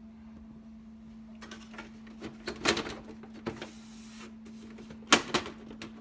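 Irregular clicks and clunks of a desktop PC case's side panel being worked loose by hand, the loudest about two and a half seconds in and just after five seconds, over a faint steady hum.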